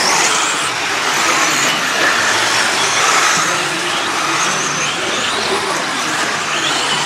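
Several radio-controlled off-road racing cars running on a clay track: the high whine of their electric motors rises and falls as they accelerate and brake, over a steady hiss of tyre and track noise.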